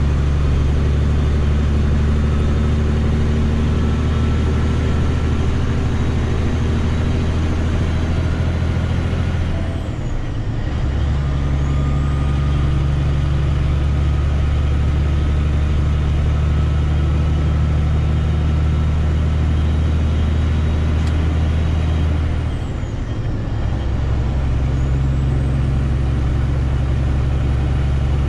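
Semi truck's diesel engine running steadily under way. Twice, about ten and twenty-three seconds in, the engine note dips for a moment and then picks back up.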